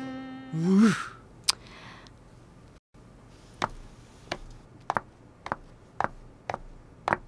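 A man's short exasperated groan as background music ends, then footsteps on a hard office floor, a sharp step about every half second.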